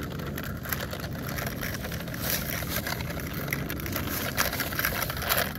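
Electronic engine sound effect from a toy Mack hauler truck's small speaker, set off by pressing the button on the trailer roof: a steady idling rumble with scratchy crackle over it.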